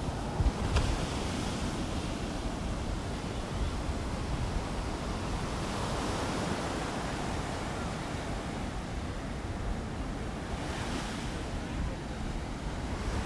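Surf washing onto the beach with wind on the microphone, a steady rushing that swells and eases, with a couple of brief wind thumps just after the start.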